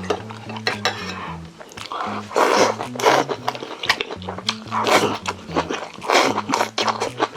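Someone eating Vietnamese rice noodles: several loud slurps and chewing, with short clicks of utensils on the bowl. Background music with a low stepping melody runs underneath.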